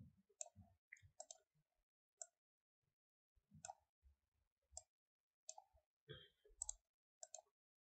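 Faint, irregular clicks of a computer mouse, a dozen or so scattered over several seconds.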